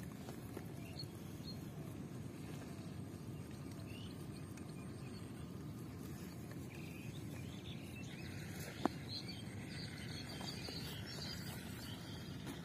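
Lakeside outdoor ambience: a steady low rumble of background noise with faint scattered high chirps, and one short click about nine seconds in.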